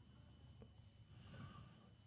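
Near silence: faint room tone with a low hum.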